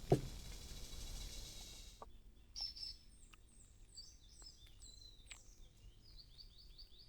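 Wild birds chirping faintly: short, high, downward-sliding calls, with a quick run of repeated chirps near the end. A brief sharp sound at the very start and a steady hiss that stops abruptly about two seconds in come before the birds.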